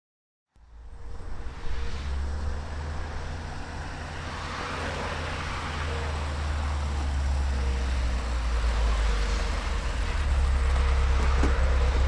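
Road traffic: a steady low rumble of passing vehicles that fades in from silence about half a second in and slowly grows louder.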